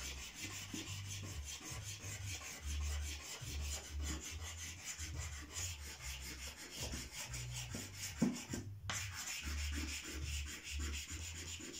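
A brown soft pastel stick rubbed quickly back and forth on paper, colouring in: a run of fast, scratchy strokes with a brief pause about three-quarters of the way through.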